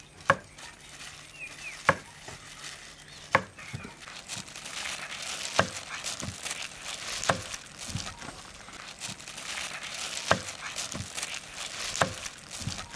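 Cleaver chopping soft roasted green peppers on a thick wooden chopping block: about seven sharp knocks of the blade hitting the wood, one every second or two, with a soft crackly hiss between strikes through the middle.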